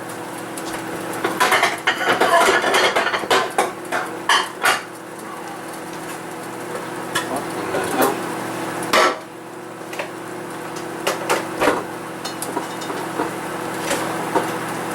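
Dishes, pots and metal utensils clattering and knocking irregularly while food is served onto a plate, with a steady low hum underneath.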